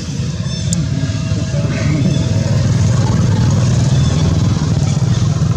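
A motor vehicle's engine running steadily, getting louder about a second in.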